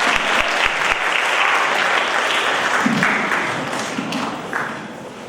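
Audience of students applauding in a large hall, with a few scattered voices; the clapping dies away over the last second or so.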